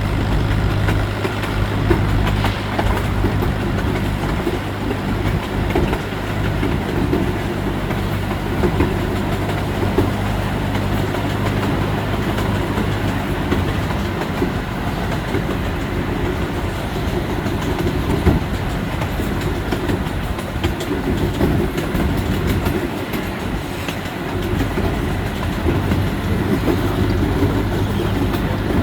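Amusement-park miniature train running along its track, with a steady rumble and wheels clicking over the rail joints.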